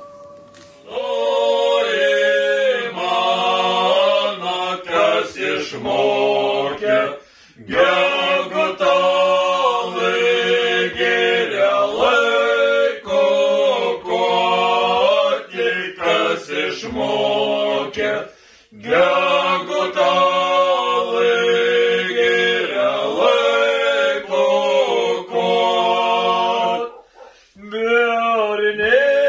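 Men singing a cappella, long held phrases of a slow song with short breaks between them.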